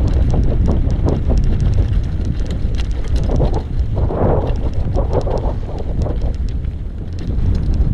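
Wind buffeting the microphone of a camera riding on an e-bike over a dirt trail: a loud, steady low rumble with many small scattered clicks and rattles throughout.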